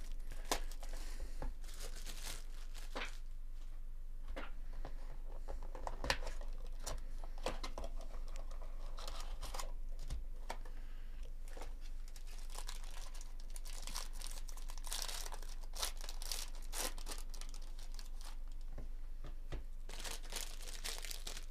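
Hands opening a cardboard hobby box of trading cards and crinkling and tearing the pack's wrapper, in scattered rustles, rips and small clicks.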